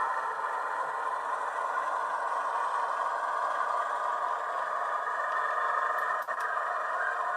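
Model railway locomotive running along the track: a steady rattling, scraping running noise, with a brief dip about six seconds in.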